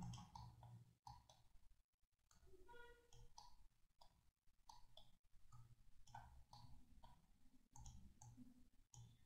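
Near silence with faint, scattered clicks of a computer mouse.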